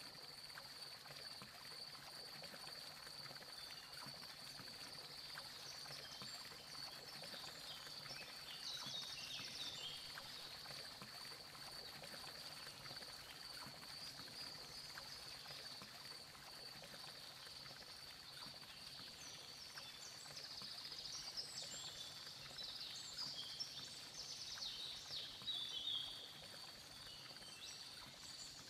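Faint outdoor nature ambience: a steady, high insect drone like a cricket chorus, with scattered chirping calls about eight seconds in and again from about twenty seconds in.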